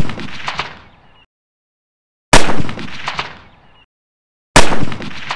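Edited-in rifle gunshot sound effects: one shot right at the start, then two more about two and a quarter seconds apart. Each is a sharp, loud crack followed by a decaying echo tail that cuts off abruptly into dead silence, added in editing to make a prop rifle sound real.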